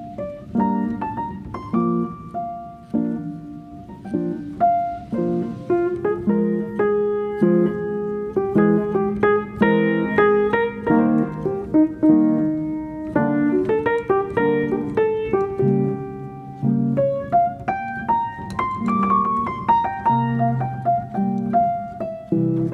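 Background piano music: a melody over chords, notes struck one after another.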